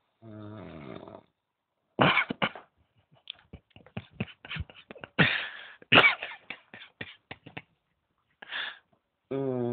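A sleeping person snoring: a buzzing snore about a second long near the start, and another beginning near the end. In between comes a run of sharp snorts, coughs and throat noises.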